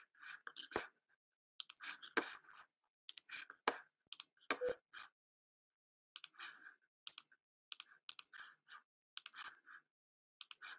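Typing on a computer keyboard: irregular, sharp key clicks in short clusters with pauses between them.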